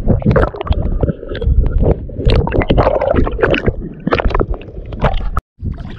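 Water sloshing and splashing against an action camera held at the waterline, an irregular run of gurgles, knocks and low rumbles as a person wades through shallow sea water. The sound cuts out for a moment near the end.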